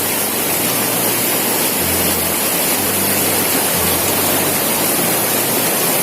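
Fast-flowing river water rushing over rocks, a steady dense rush with no break. Faint low notes come and go underneath every second or two.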